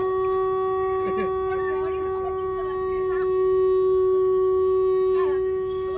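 Conch shell (shankha) blown in one long, steady, unbroken note, a little louder in the second half, with faint voices over it.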